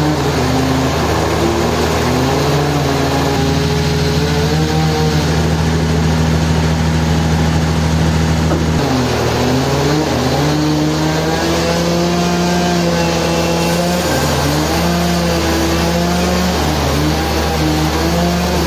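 Engine of sawmill machinery running without pause, its pitch dipping and rising again several times, with a marked dip about nine seconds in.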